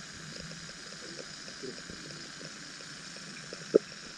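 Underwater sound picked up by a small submerged camera: a steady hiss with faint, scattered knocks and clicks, and one sharp click a little before the end.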